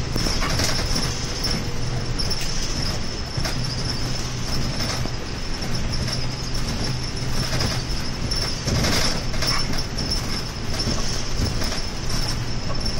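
Cabin noise of a city bus on the move: the engine's low hum and road noise, with a thin steady high whine and occasional short knocks and rattles.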